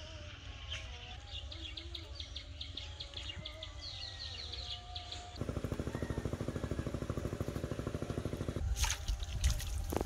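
Birds chirping over quiet rural ambience. About halfway through, a steady, rapidly pulsing drone like a small motor starts and runs for about three seconds. Near the end come loud splashing and rustling as a hooked fish is yanked out of the water through the water hyacinth.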